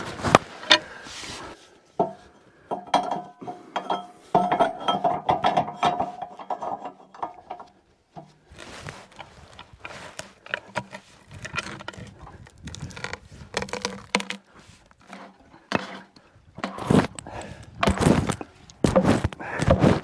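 Cant hook biting into the bark and a large log shifting and rolling on a portable sawmill's steel bed: irregular knocks, clicks and scrapes, with a denser grinding stretch a few seconds in.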